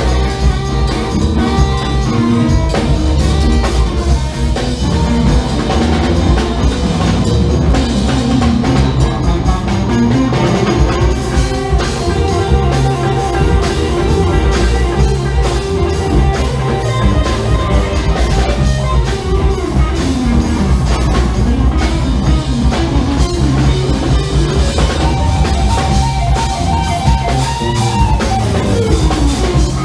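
Funk band playing live, an instrumental passage on electric guitar, bass, drum kit and percussion, with tenor saxophone in the line-up, over a steady beat.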